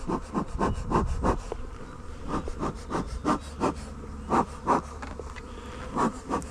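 Swarm of honeybees buzzing around the hive, with individual bees passing close to the microphone in quick succession, several a second, over a steady low hum.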